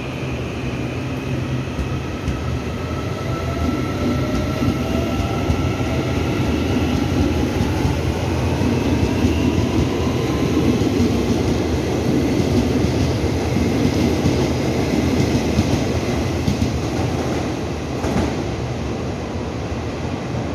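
Taiwan Railway EMU900 electric commuter train pulling out and accelerating: its traction motors give a whine that rises in pitch, over a heavy rumble of wheels on the rails that eases off near the end as the train draws away.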